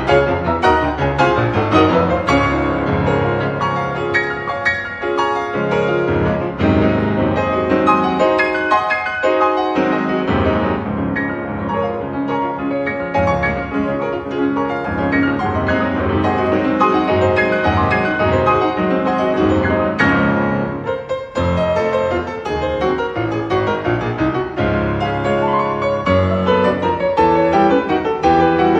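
Two grand pianos playing together as a duo: an arrangement of a gato, an Argentine folk dance, with busy, continuous note-work and a brief dip in loudness about two-thirds of the way through.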